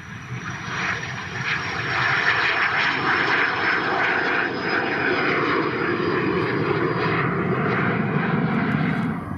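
Airliner engine noise as an aircraft passes at the airport: it swells over the first two seconds and then holds steady, with a thin high whine that slowly falls in pitch.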